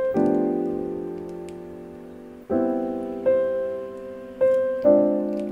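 Background music: a slow solo piano piece, chords struck every second or two and left to fade.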